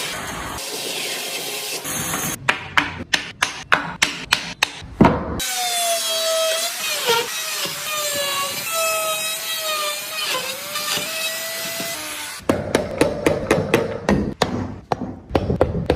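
Woodworking tools on wood: about three to four quick strikes a second, like a mallet driving a chisel. In the middle a power tool whines, its pitch wavering up and down as it works the wood. Close, rapid strikes come back near the end.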